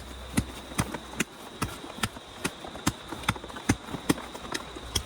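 A steady run of sharp, evenly spaced knocks, about two and a half a second, over a thin steady high whine.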